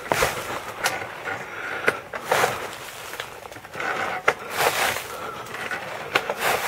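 A four-wheeled recumbent pedal quad rolling over a rough woodland path, with irregular clicks, knocks and rattles over a steady rustling noise.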